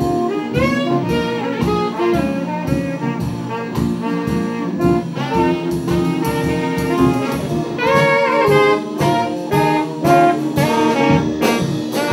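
A band playing a jazzy tune, with saxophones carrying the melody over a drum kit that keeps a steady beat.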